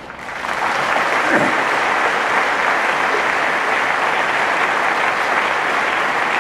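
Large audience applauding, swelling up over the first second and then holding steady.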